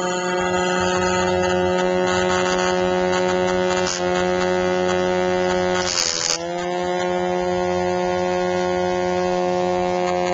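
Small electric motor of a homemade soda-bottle RC plane running steadily with its propeller, a constant buzzing hum. About six seconds in the pitch dips briefly with a rustle, then recovers.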